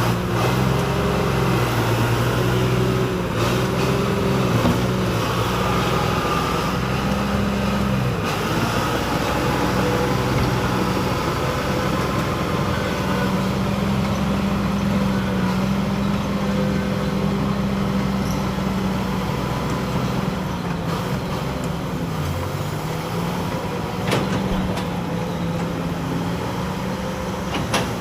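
Hydraulic excavator running under working load, its diesel engine note shifting and dipping as the hydraulics are worked, with a thin hydraulic whine above it. A couple of sharp knocks come near the end.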